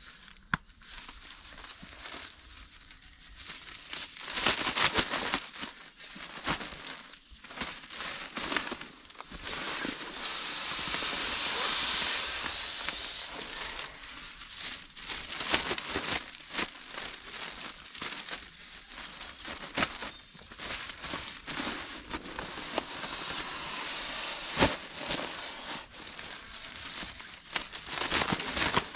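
Synthetic fabric rustling and crinkling as a nylon stuff sack and quilt are handled, with scattered sharp clicks and a longer hissing swell about ten seconds in.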